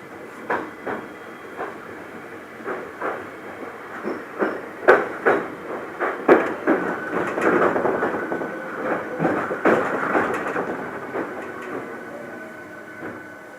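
Interior of a Hankyu Kyoto Line train car under way. Wheels clack over rail joints again and again, loudest about halfway through, over the steady rumble of the running train. A faint steady whine comes in partway through, and the running noise dies down near the end.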